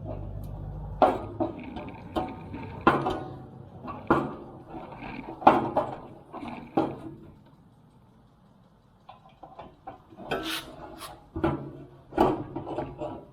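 Weber Spirit gas grill parts being fitted together by hand: a series of separate knocks and clunks as a piece is worked down onto its mounting pin, with a quieter pause near the middle.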